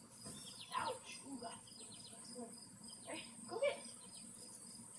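Quiet summer backyard ambience: a steady high insect drone, with a few faint short voice-like calls about a second in and again a little past the middle.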